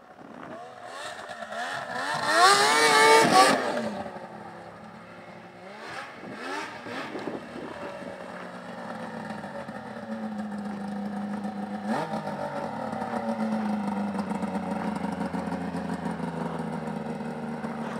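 Yamaha Vmax SX 700 snowmobile's three-cylinder two-stroke engine revving hard, its pitch rising and wavering for a couple of seconds about two seconds in, with a shorter rev a few seconds later. It then runs steadily at low revs, the pitch sinking slowly toward the end.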